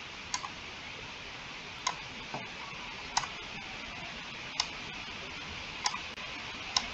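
Computer mouse clicking: single sharp clicks about every second or so, over a steady hiss.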